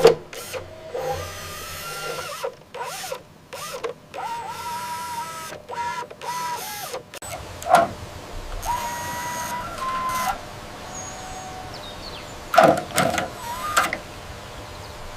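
Small electric motors and gearboxes of RC heavy-equipment models whining in short stop-start runs, some rising or falling in pitch. A few sharp knocks come about halfway through and again later.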